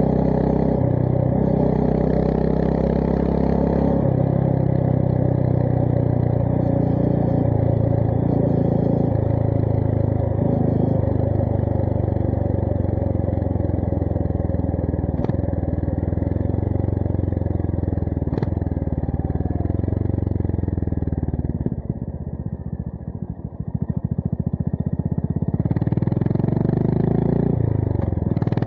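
Honda GB350S's air-cooled single-cylinder engine running through a MILLER Spitfire slip-on exhaust on the move, its revs rising and falling. About three quarters of the way through, the revs drop away to a low, uneven beat, then pick up again near the end. Two sharp clicks come midway.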